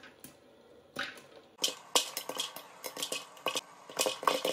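Popcorn kernels popping inside an electric stirring popcorn popper, sharp irregular pops against the clear plastic dome. A single pop about a second in, then the popping comes thick and fast from about a second and a half in.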